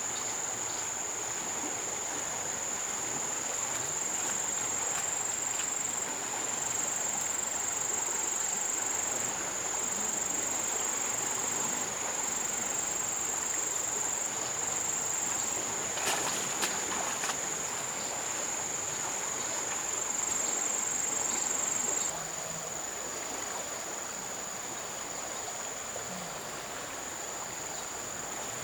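Insects droning steadily at a high pitch, softening about two thirds of the way through, over the steady rush of river water. A few faint knocks sound just past the middle.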